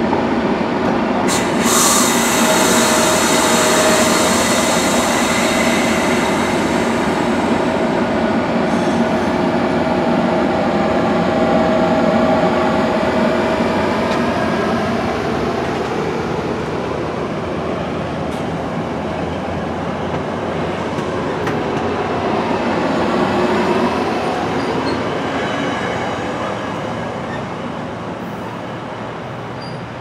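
Virginia Railway Express commuter train's stainless-steel bi-level cars rolling past: a steady rumble and rattle of wheels on rail, with a few thin whining tones from the wheels. The sound fades over the last few seconds as the rear cab car pulls away.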